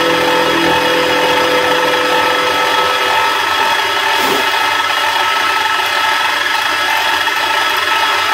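Small benchtop milling machine running, its end mill cutting slots in metal RC dozer track links: a steady motor whine over the scraping of the cut. A small cooling fan on the mill's motor runs along with it.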